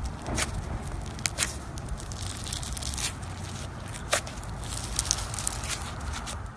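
Floam slime, packed with small foam beads, being squished and pressed by hand, the beads giving irregular crackles and pops over a low steady hum.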